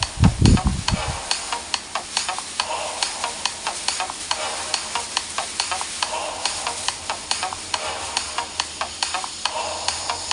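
Black plastic garbage-bag skirt rustling and crinkling in a steady rhythm as the wearer dances, about three sharp swishes a second. A deep low sound cuts off about a second in.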